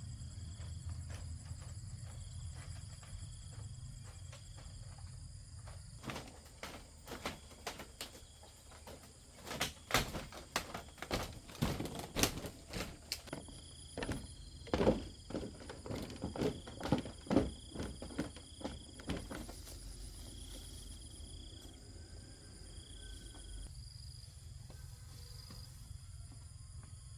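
Insects calling in several steady high-pitched trills over a low background rumble, with a run of irregular knocks and thuds from about six seconds in until about twenty seconds in.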